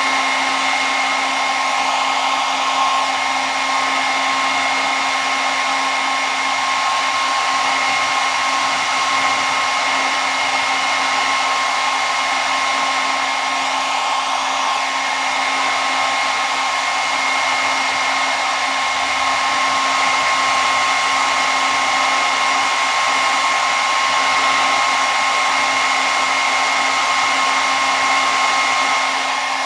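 Handheld hair dryer running steadily: a rushing blast of air with a constant motor whine that stays at one pitch.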